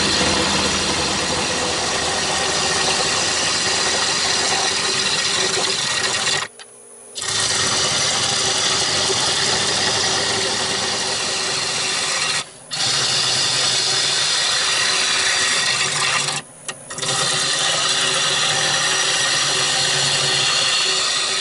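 Wood lathe running with a turning tool cutting into a spinning olive wood blank: a steady scraping hiss over the lathe's hum. It drops out briefly three times, about a third of the way in, near the middle and about three quarters through.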